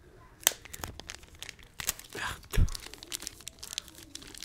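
Packaging being bitten and torn open by teeth: crinkling and crackling with sharp tearing clicks, and a dull thump about two and a half seconds in.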